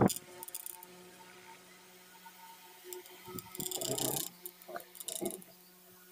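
Light metallic rattles and clinks from the wire guard and tilting head of a homemade battery-powered DC table fan being handled, with a louder cluster about four seconds in and a couple of short knocks after it, over a faint steady hum.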